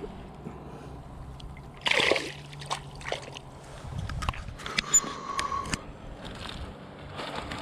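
Pond water splashing and sloshing, with one louder splash about two seconds in and a few sharp clicks.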